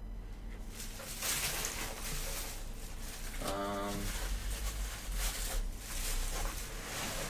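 Rustling and scraping of a refrigerator's packaging as it is handled and pulled off during unboxing. There is a short pitched sound about halfway through.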